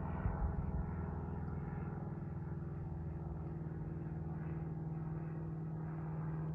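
A steady low drone with a held hum-like tone, unchanging throughout.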